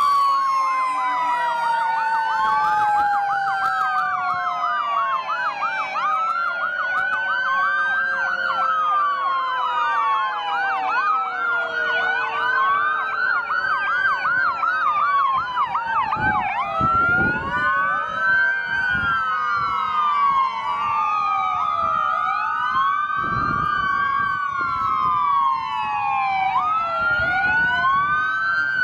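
Several emergency-vehicle sirens on passing fire trucks and ambulances sounding at once, overlapping: slow rising-and-falling wails layered with fast repeated yelps.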